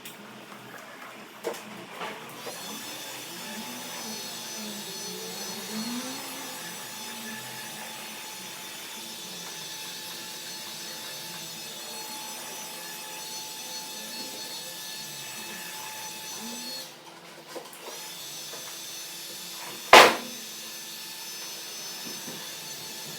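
A steady machine hum with several fixed high tones, cutting out briefly about 17 seconds in. Near the end comes one sharp, loud knock.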